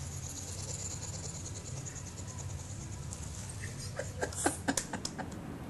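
Pet hedgehog huffing, a steady fast-fluttering hiss, with a few sharp clicks and knocks about four to five seconds in.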